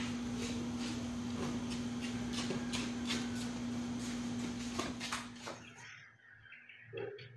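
Sneakers being handled, giving short clicks and rustles over a steady hum and hiss. The noise drops away sharply about five and a half seconds in, leaving a quieter background with one brief sound near the end.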